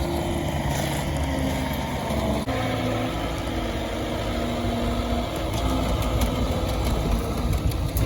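Vehicle engine running steadily, its note shifting a little about two and a half seconds in.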